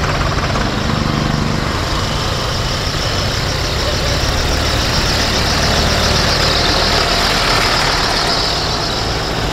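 Diesel engines of farm tractors running as the tractors drive past in a slow procession, a steady low engine note throughout.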